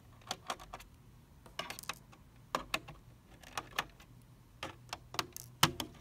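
Small screwdriver clicking and scraping against the bottom-case screws and plastic case of a Dell Inspiron 3558 laptop as the screws are backed out: a string of light, irregular clicks and taps.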